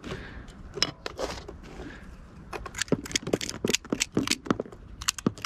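Handling noise of pistol magazines and loose cartridges: a run of sharp, irregular clicks and light metallic rattles, sparse at first and coming thick and fast in the second half.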